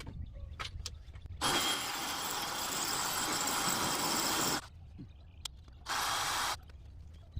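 Power drill boring into concrete, run in two bursts: a long one of about three seconds, then a short one about a second later.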